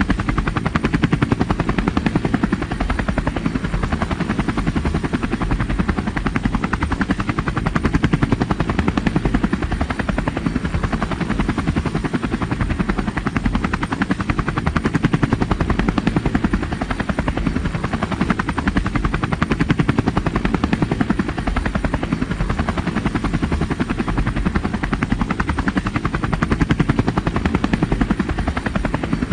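A steady, deep mechanical drone with a rapid, even pulsing, like a running engine or rotor.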